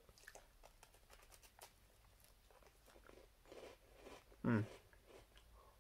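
Faint crunching and chewing of a crunchy chocolate-filled biscuit, a soft crackle here and there, with one brief hum from the eater about four and a half seconds in.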